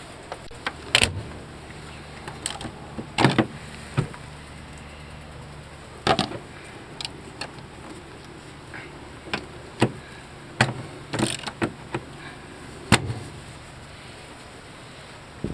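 Irregular sharp knocks and clicks, about a dozen, from hand-held camera handling and bumps against a fiberglass boat's hatches and deck, with a faint low hum under the first half.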